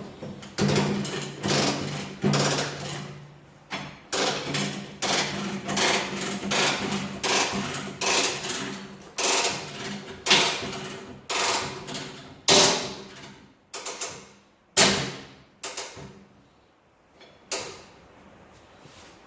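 Repeated sharp steel-on-steel clanks, a little more than one a second, each with a short ring, thinning out in the last few seconds, as the tractor bucket's bent cutting edge is worked back flush.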